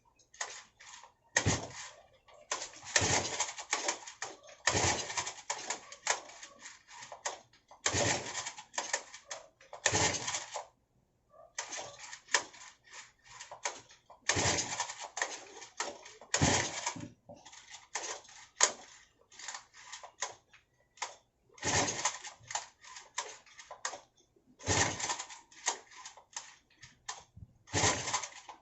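Repeated pull-starting of a Honda GX35 four-stroke engine: bursts of rattling and clicking from the recoil starter every two to three seconds, each often opening with a thump, and the engine never catches.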